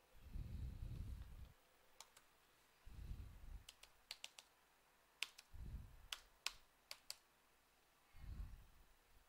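Scattered sharp clicks of laptop keyboard keys being pressed, about a dozen, some singly and some in quick runs. They are set among four short, low, dull handling rumbles as the device is moved.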